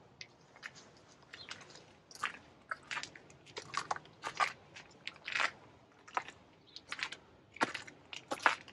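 Footsteps crunching in snow at a walking pace, roughly two steps a second.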